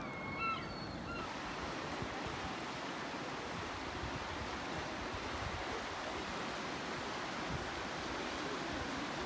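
Fast-flowing river water, the River Corrib running in rapids under a stone bridge, making a steady rushing noise. A few short high-pitched calls sound in the first second, before the water takes over.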